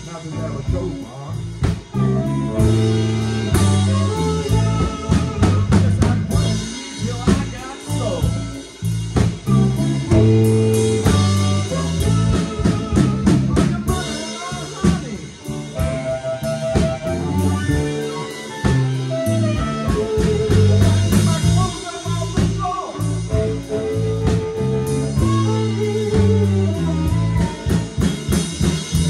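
Live blues band playing: drum kit, electric bass and electric guitar, with a blues harmonica played through the vocal microphone. No singing.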